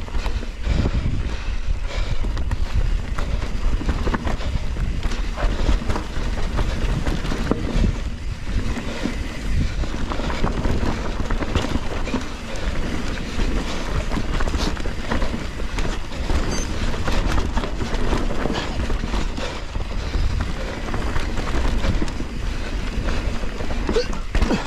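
Trek Slash 7 enduro mountain bike riding fast down a dirt trail: tyres rolling over dirt and roots, with frequent rattles and knocks from the bike over bumps and wind buffeting the microphone.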